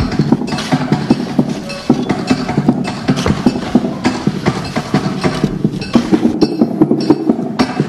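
Dense, fast, irregular clattering of knocks and taps, percussive sound-art playing with no steady beat or tune.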